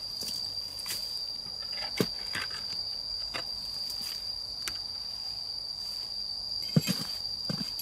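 A steady, high-pitched insect drone, with a shovel scraping and knocking in the dirt of a pit now and then; the sharpest knocks come about two seconds in and twice close together near the end.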